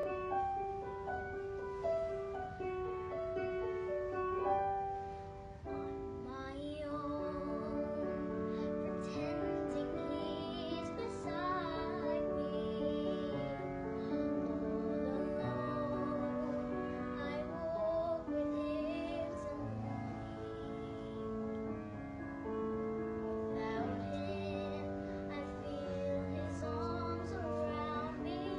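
A girl singing solo with piano accompaniment. The piano plays alone at first, and her voice comes in about six seconds in.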